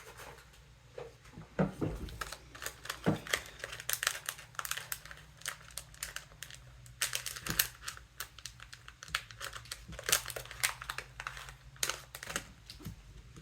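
Hands handling the small plastic parts and O-rings of a scuba inflator: a busy run of light crinkling, rustling and small clicks.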